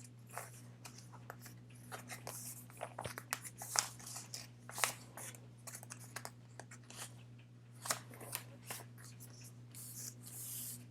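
Photo cards and plastic binder sleeves being handled, making scattered crinkles, taps and rustles. Under them runs a steady low hum from a dishwasher draining.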